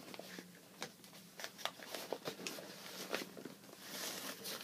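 Cardboard packing rustling and crinkling as it is handled, with irregular clicks and short scrapes and a longer rustle about four seconds in.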